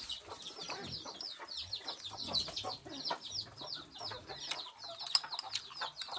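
Chickens clucking and chirping, with short high chirps repeating about four times a second, and a few light clicks.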